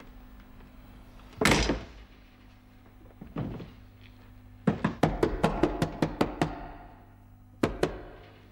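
Fists pounding on a walk-in freezer's door from inside: one heavy blow, a lighter one, then a rapid run of about ten blows and one more.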